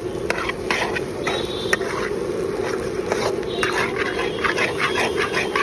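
Metal spatula scraping and clinking irregularly against a steel pan as eggs are stirred and chopped, over a steady hum of street noise.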